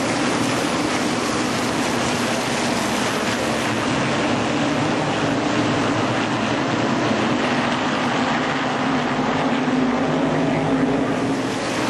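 Modified stock car engines of a racing field running together in a steady, unbroken drone.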